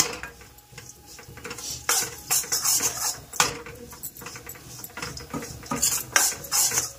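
Metal spoon stirring in a cooking pot, clinking and scraping against it at irregular moments, as gram flour (besan) is mixed into dal.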